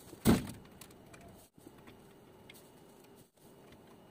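A single sharp knock about a third of a second in, then a few faint ticks and clicks of handling. These come from rods of trout fillets being hung on the rails of a stainless-steel smoking cabinet.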